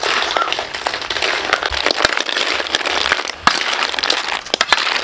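River snails in their shells being stir-fried in a metal wok with metal spatulas: a dense rattle of shells clattering and spatulas scraping on the pan, over a steady hiss of frying.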